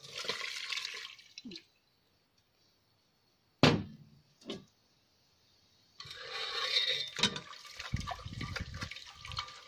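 Watery pounded curry paste poured from a mortar through a wire-mesh strainer into a pot, splashing for about a second. A sharp knock follows, and from about six seconds in a ladle stirs and presses the mix in the strainer, with liquid sloshing and scraping.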